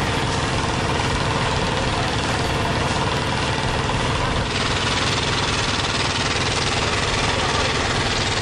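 Fishing boat's engine running steadily with a dense wash of noise over it.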